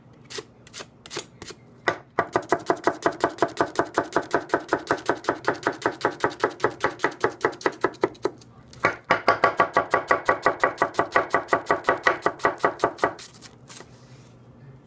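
Masakage Yuki 210 mm gyuto (white #2 carbon steel) dicing an onion on a wooden cutting board: a few slow single cuts, then fast, even chopping at about eight strokes a second as the blade taps the board, in two long runs with a brief pause between.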